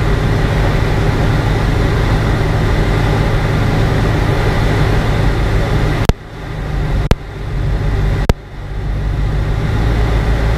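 P200 ultralight's engine and propeller running steadily, heard from inside the cockpit. About six seconds in the sound drops suddenly with a click, and two more sharp knocks follow over the next two seconds as the aircraft touches down and rolls on a grass strip.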